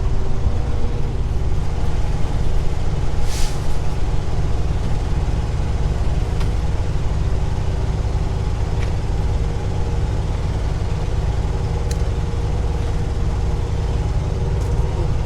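Heavy truck's diesel engine idling with a steady low rumble, with a short hiss of air about three seconds in.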